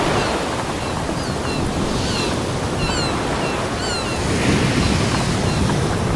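Ocean surf washing steadily onto a beach, swelling gently. A few short, high chirps sound over it in the middle.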